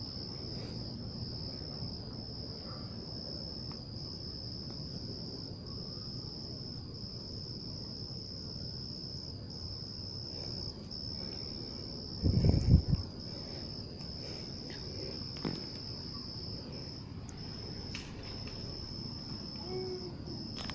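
Steady high-pitched chorus of night insects, which the listener takes for cicadas, with brief dips every second or two. A short low thump about twelve seconds in is the loudest thing.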